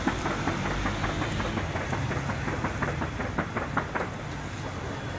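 Gunfire: a rapid, irregular string of shots, several a second, thinning out and stopping about four seconds in, over a steady low hum.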